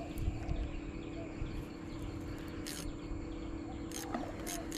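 Steady background of crickets chirring, over a steady low hum, with a few brief sharp clicks in the second half.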